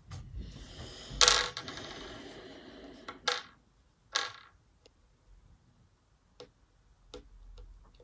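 A sharp knock a little over a second in, then scattered small clicks and taps as a metal needle tool and fingers work polymer clay on a board on a tabletop.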